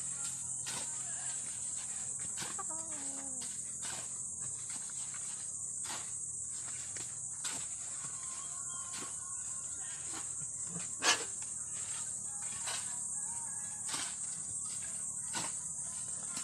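Steady high-pitched chorus of insects. Scattered short sharp knocks sound throughout, the loudest about eleven seconds in.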